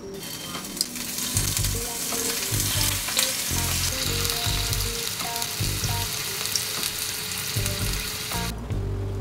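Food frying in hot oil in a pan, a dense crackling sizzle that stops abruptly near the end, with background music beneath it.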